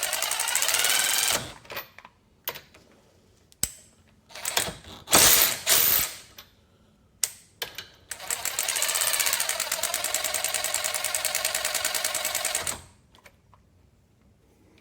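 DeWalt DCF513 Atomic 20V brushless 3/8-inch cordless ratchet run on its variable-speed trigger. A run stops about a second and a half in, then come a few clicks and short bursts, then a steady rapidly pulsing run of about four and a half seconds that rises in pitch as the motor speeds up.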